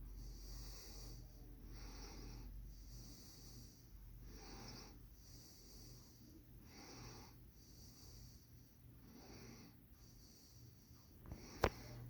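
Robbins & Myers Hunter Original ceiling fan running: a faint low motor hum with soft rhythmic whooshes of air, about one every second and a quarter. A single sharp click comes near the end.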